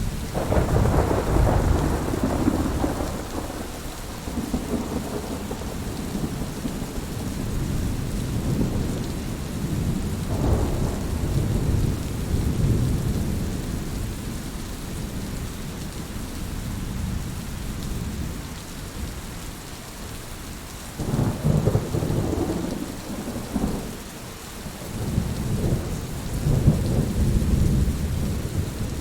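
Heavy rain falling steadily, with rolls of thunder rumbling through it: a long one at the start, a shorter one about ten seconds in, and two more near the end.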